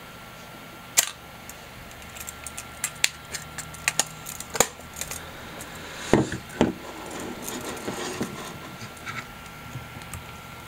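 Mechanical clicks and clacks from a Canon TX 35 mm film SLR body being handled: a sharp click about a second in, a run of small clicks, then two heavier knocks about six seconds in, followed by some rustling.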